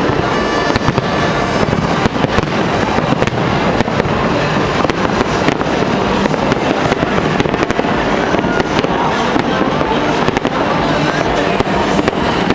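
Fireworks display going off overhead: a dense run of sharp bangs and crackles from bursting aerial shells, over a continuous rumbling din.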